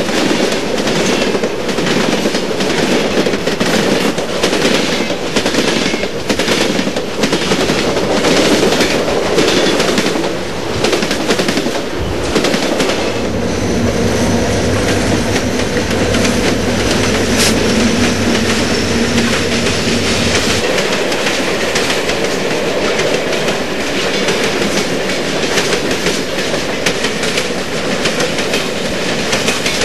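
HO scale model freight train rolling past, its wheels clicking rhythmically over the rail joints, a few clicks a second. From about twelve seconds in until about twenty-one seconds a steady low hum joins the rolling noise, then fades.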